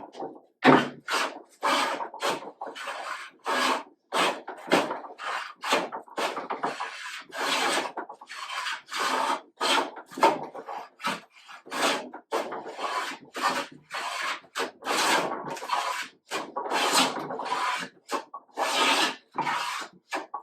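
Hand plane working a wooden board, stroke after stroke in quick succession, each a short swish of the blade taking a shaving, about one and a half strokes a second. The board is being planed down to a marked line to flatten and square it.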